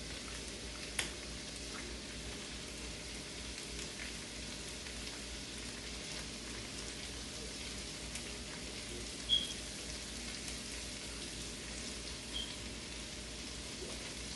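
Onion, bell pepper, squash and garlic sizzling steadily as they sauté in a pan, with a few light clicks.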